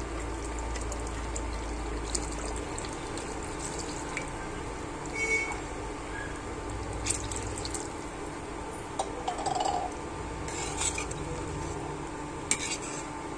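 Water being poured into a steel pot of chicken curry, then a steel ladle stirring it and clinking against the pot several times in the second half.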